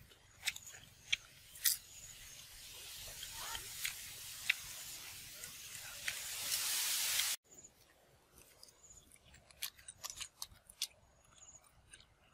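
Crunchy chewing of fried palm grubs as scattered sharp clicks and crackles. Under the first seven seconds a hiss grows steadily louder, then cuts off abruptly.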